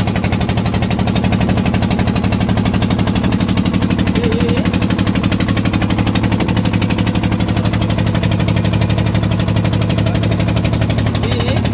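A fishing boat's diesel engine running steadily with a fast, even chugging beat.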